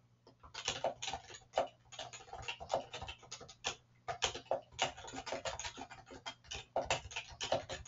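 Typing on a computer keyboard: a quick, uneven run of key clicks with a few short pauses.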